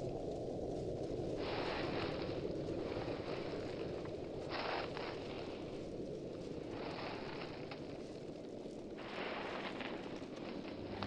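Low rumbling noise like wind on a microphone, with stretches of brighter hiss that cut in and out abruptly every couple of seconds.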